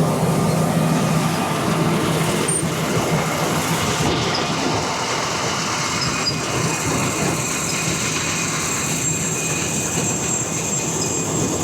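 John Deere combine harvester running at harvest speed close by: a steady, loud mix of engine and threshing machinery, with a high whine that comes up about halfway through.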